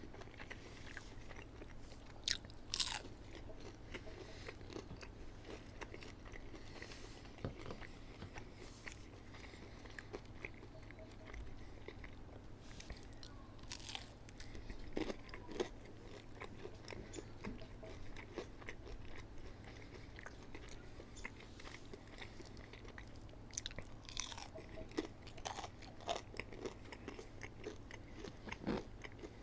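Close-miked eating of McDonald's fast food: wet chewing with scattered crunchy bites, heard in clusters over a faint steady low hum.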